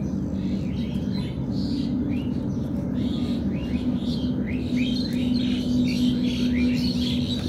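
Birds chirping, many short downward-sliding notes in quick succession starting about a second in, over a steady low hum and background noise.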